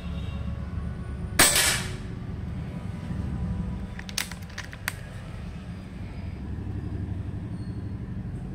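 A single shot from a Precihole PX100 .177 PCP air rifle about a second and a half in: a sharp crack with a short ring-out. About four seconds in come a few quick light clicks as the action is worked for the next pellet. A steady low hum runs underneath.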